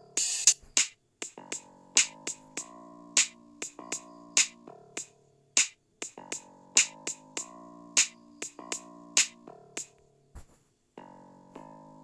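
Background music: a drum-machine beat with sharp hits over held synthesizer chords that change every second or so, dropping out briefly about ten seconds in.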